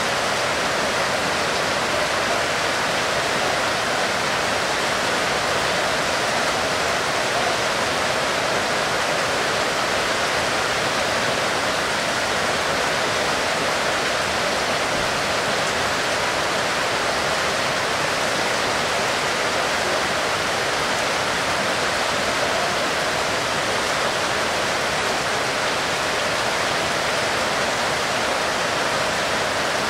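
Heavy rain falling steadily: an even, unbroken hiss with no separate drops or gusts standing out.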